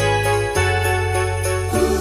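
Festive Christmas music with jingle bells ringing in a steady rhythm, about four shakes a second, over held bass notes that change pitch a couple of times.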